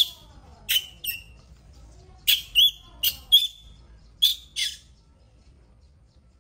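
A baby monkey's short, high-pitched squeals: about nine quick cries in some five seconds, some dropping in pitch at the end, then they stop.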